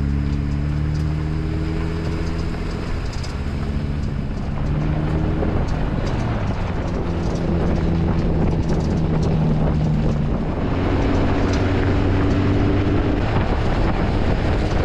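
Jeep Wrangler JL driving on a forest service road: the engine runs steadily, its pitch stepping and gliding up and down as the speed changes, over continuous road and tyre noise.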